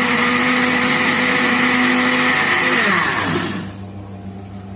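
Electric blender running at full speed, blending yogurt and sugar into a sweet lassi, then switched off about three seconds in, its motor pitch falling as it winds down. A low steady hum remains afterwards.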